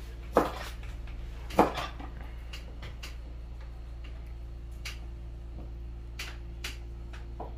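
Kitchen knife chopping goat meat on a wooden cutting board: irregular knocks of the blade hitting the board, two sharp ones in the first two seconds, then lighter, sparser taps.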